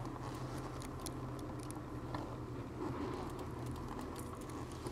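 Lada Granta clutch pedal being worked, its mechanism giving light scattered clicks but no squeak now that the pedal's return spring has been lubricated with WD-40. A steady low hum runs underneath.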